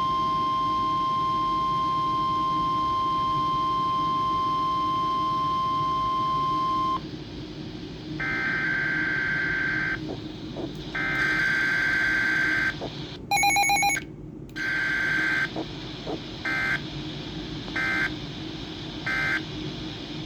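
Weather radio alert tones: a steady 1050 Hz warning tone for about seven seconds, then a series of warbling digital data bursts of SAME alert code, ending in three short, evenly spaced bursts. A brief, louder multi-tone beep about thirteen seconds in is the loudest sound. Low radio hiss lies under it all.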